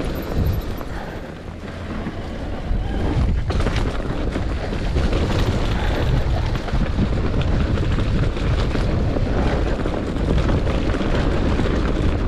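Wind buffeting the microphone over the steady rumble and rattle of a mountain bike descending a rough trail.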